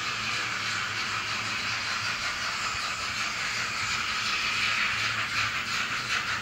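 Sound decoder of an Arnold N-scale model of steam locomotive 41 001 playing a steady steam hiss with regular chuffs through its small speaker, the chuffs more distinct in the second half.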